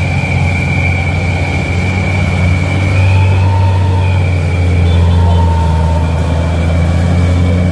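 Heavy truck diesel engine running with a deep, steady rumble that grows louder about three seconds in. A steady high-pitched whine sits over it, with a few short mid-pitched tones.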